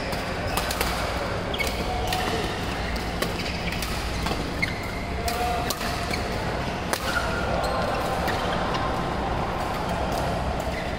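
Badminton rally in a large, echoing sports hall: sharp racket-on-shuttlecock hits at irregular intervals, short squeaks of shoes on the court mat, and a steady din of play on neighbouring courts.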